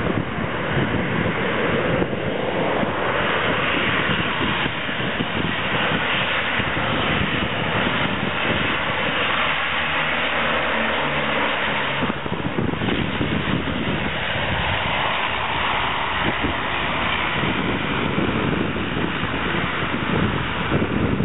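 Engines and propellers of a Canadair amphibious water bomber droning as it flies low past. A steady propeller tone is clearest about halfway through, and wind noise on the microphone runs throughout.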